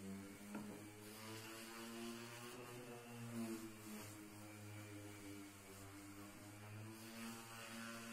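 Random orbital sander running on pine, a humming motor whose pitch wavers slightly as it is pressed and moved over the wood.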